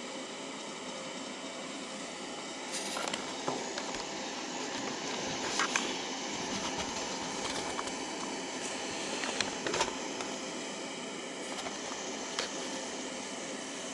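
Steady machine hum and hiss, like a fan running, with several short clicks and knocks scattered through.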